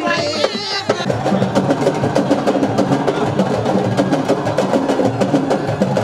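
Percussion music: drums keep up a fast, dense, steady rhythm, with a wavering high voice over the first second.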